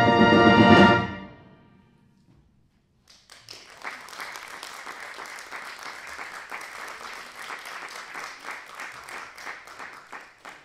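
A brass band holds its closing chord, which cuts off about a second in and rings away. After about two seconds of silence the audience breaks into steady applause.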